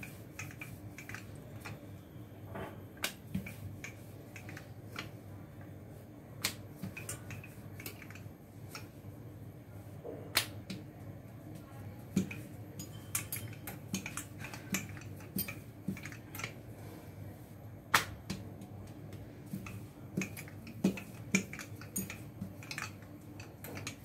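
Rolling pin knocking and clicking against a rolling board as paratha dough is rolled out: irregular sharp taps, several louder knocks among them.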